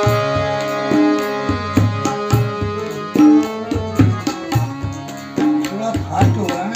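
Harmonium playing sustained chords and melody over tabla, an instrumental passage of a devotional bhajan. The low drum strokes bend in pitch near the end.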